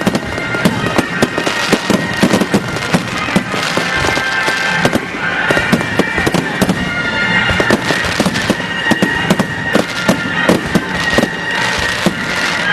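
A dense fireworks barrage: rapid, continuous bangs and crackles, with high shrill whistles held over them.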